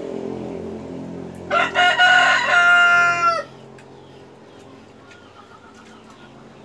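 A rooster crows once, starting about a second and a half in: a few short notes, then a long held call that drops in pitch as it ends. A low engine hum fades out before the crow.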